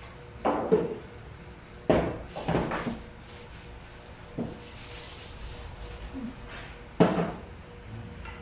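A handful of separate wooden knocks and clunks, the loudest about two seconds in and again about seven seconds in.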